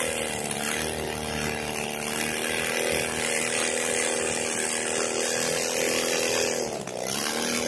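Experimental air-cooled aircraft engine running steadily on its test stand. About seven seconds in, its speed dips briefly and then picks back up.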